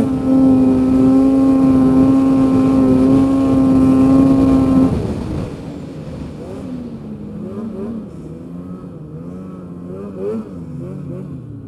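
A Polaris Pro-S 800 snowmobile's two-stroke twin engine runs at a steady, high, even pitch. About five seconds in, the throttle is eased off and it falls to a quieter, lower, wavering note.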